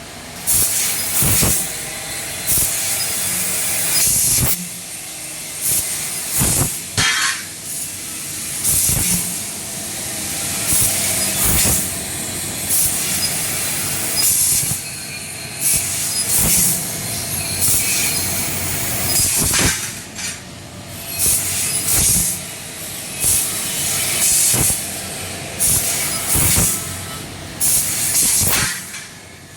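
Laser cutting machine at work: a loud hiss of cutting gas that surges and drops every second or two, with short louder bursts in between.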